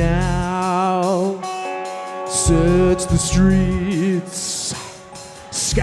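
Live band music from a four-piece of drums, bass, guitar and keyboards, heard from the soundboard mix: a song in full swing, with wavering melodic lines over a steady drum and bass pulse.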